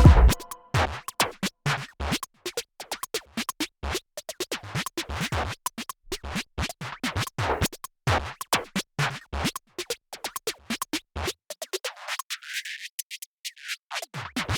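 Electronic background music in a sparse break: scattered short percussive clicks and scratch-like hits without the bass. Near the end the low end sweeps out and back in.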